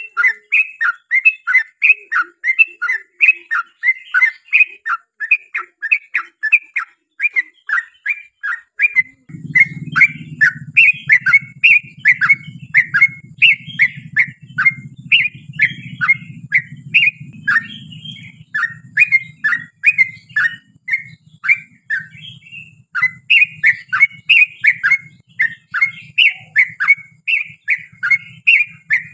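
Yellow-vented bulbul (trucukan) singing a long unbroken run of quick, chattering notes, about three a second. About nine seconds in, a low steady hum starts under the song.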